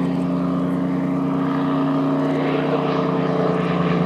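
Single-engine piston propeller plane flying past low with a steady engine drone that grows a little louder and fuller near the end.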